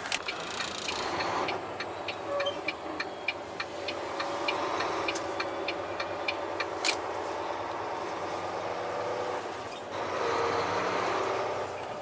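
Truck engine running heard from inside the cab, with a turn signal ticking about two or three times a second for the first seven seconds or so, then stopping.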